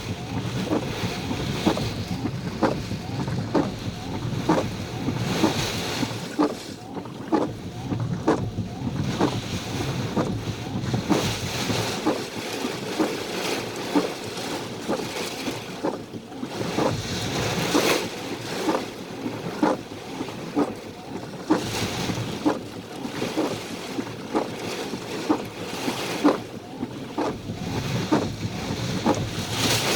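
Strong storm wind gusting and buffeting the microphone, rising and falling in surges, with many irregular short knocks and patters.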